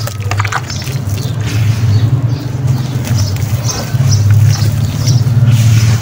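Clumps of wet sand and cement crumbled by hand into a basin of water, with scattered crackles and small splashes. A steady low hum runs underneath and is the loudest sound.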